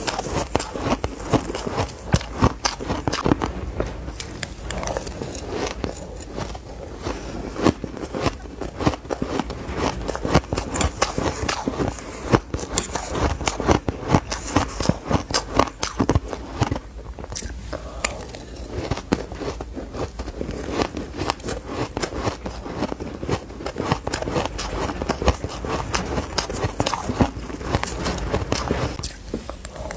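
Purple crushed ice being bitten and chewed: a rapid, dense run of crisp crunches and crackles that never lets up.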